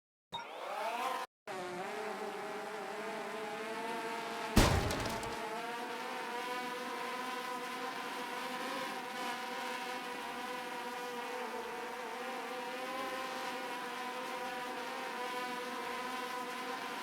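DJI FPV drone's brushless motors and propellers whining with several steady tones, rising in pitch as they spin up at the start, then running steadily. A sharp thump about four and a half seconds in is the loudest sound.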